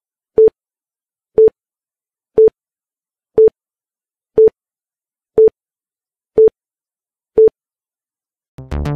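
Workout interval timer beeping once a second, a short mid-pitched beep each time, eight beeps in all as it counts off the seconds. Upbeat electronic music comes in near the end.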